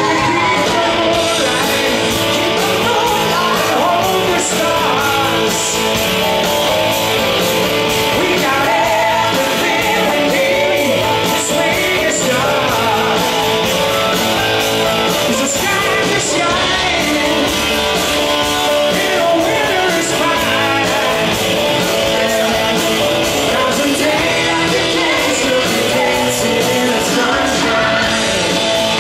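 Hard rock band playing live: a male lead singer over electric guitar and drums, with backing singers, heard from the crowd in a large hall.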